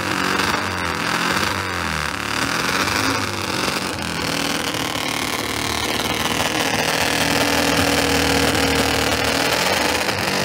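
Motorcycle engine revved in a series of rises and falls in pitch for the first few seconds, then running at a steadier speed.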